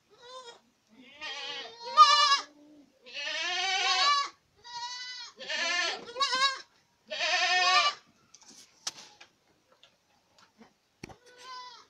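Boer goats bleating, several animals calling one after another, about eight loud bleats with a quavering pitch in the first eight seconds, then a few faint calls near the end.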